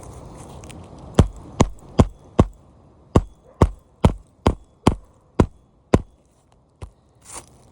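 Hammer driving nails to fasten a roofing shingle back down: about a dozen sharp strikes, roughly two a second, stopping about six seconds in.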